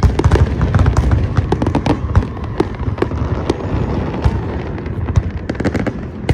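Fireworks display going off: a dense, rapid run of sharp cracks and pops, several a second, over a continuous low rumble of bangs.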